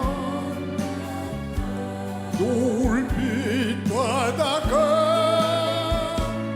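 Song performance: a singer's voice holding long notes with vibrato over a steady backing band track.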